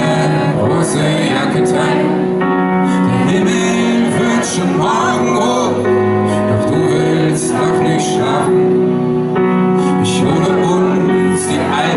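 Live pop-rock band playing, with a man singing lead into a microphone.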